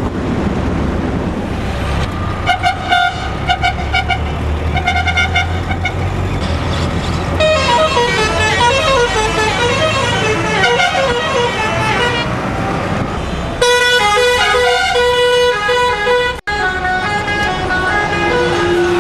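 Road traffic: a vehicle engine running with horns sounding again and again, first in short pulsing honks a few seconds in, then a run of notes rising and falling, then longer held horn blasts near the end.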